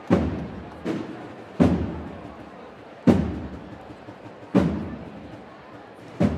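Procession band's drums beating slow single strokes, about one every second and a half, each ringing out and echoing off the street walls.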